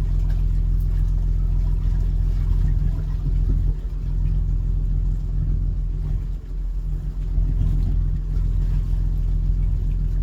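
A boat's engine running at a steady low hum, heard on board.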